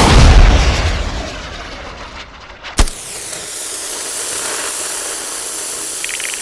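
Rumbling tail of a loud explosion sound effect, dying away over about two seconds. A single sharp crack comes near the middle, followed by a steady hiss.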